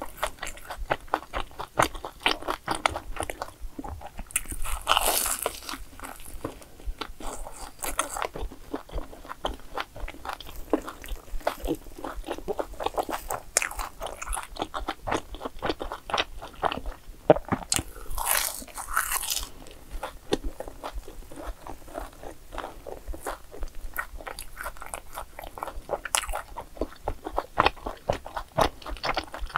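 Close-up eating sounds of a fried sweet rice twisted doughnut: crunchy bites into the fried crust and steady chewing, with many small crackles throughout.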